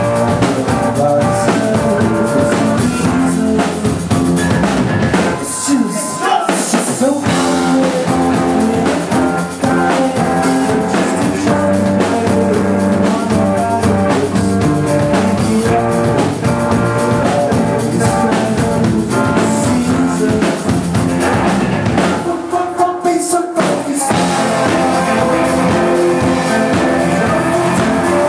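Live indie rock band playing: electric guitars, drum kit and a male lead vocal, loud and full. Twice the bass end drops away briefly, about six seconds in and again around twenty-three seconds, before the full band comes back.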